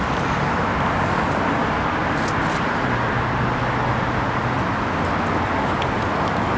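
Steady road traffic noise, with the low sound of passing vehicle engines.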